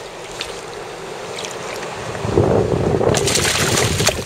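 River water rushing and splashing close to the microphone, growing louder about halfway through, with a burst of splashing near the end.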